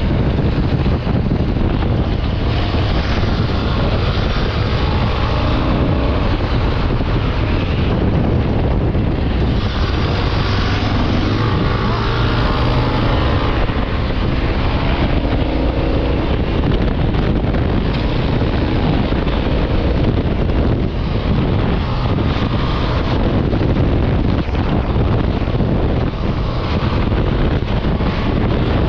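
Wind rushing over the microphone of a motorcycle at highway speed, mixed with the engine and road noise, steady throughout.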